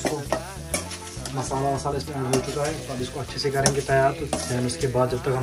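A metal spoon stirs and scrapes masala frying in a steel pot, with the frying sizzle underneath and a string of small clicks against the pot. A song plays in the background.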